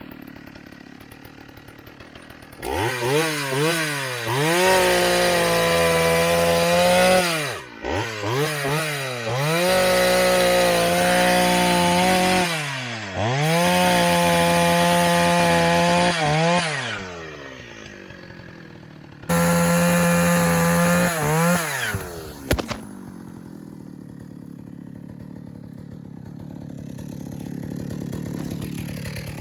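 Pioneer Partner P70 two-stroke chainsaw running at high revs in four long bursts, its pitch dropping and climbing again between them. It shuts off about 22 seconds in.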